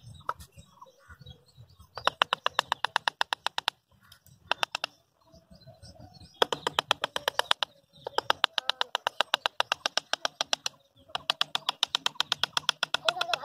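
Rapid, even clicking at about ten clicks a second, coming in five runs of one to three seconds with short pauses between.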